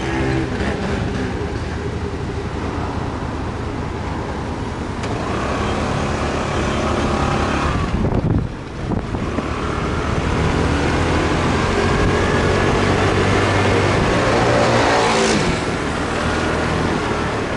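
Motorbike engine heard from the rider's seat, rising in pitch as it pulls away twice through city traffic, dropping off sharply for a moment about eight seconds in and easing off again near the end.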